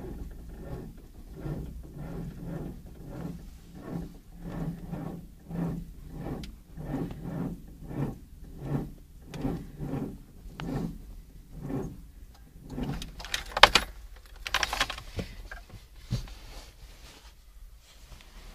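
A car's starter cranking a cold-soaked engine at −22 °C in a slow, labouring rhythm of about one and a half pulses a second, without the engine catching. The cranking stops about thirteen seconds in, followed by a few sharp clicks and a short clatter.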